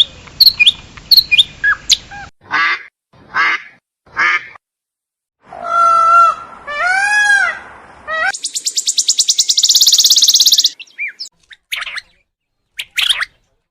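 A run of different birds' calls cut one after another: quick sharp chirps, three short calls, two drawn-out calls with a rich pitched tone, then a loud, fast rattling trill lasting about two seconds, and a few scattered short calls near the end.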